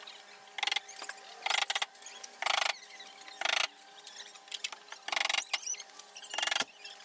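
A hand tool worked against the plywood hull in short, harsh scraping strokes, each about a quarter second long with a squeak in it. There are about six strokes at an uneven pace, roughly one a second.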